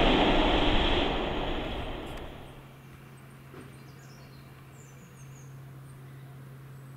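The rumble of a train of coaches behind GWR Castle Class 5043, moving away and fading out over about two seconds. After that there is a steady low hum and a few faint bird chirps.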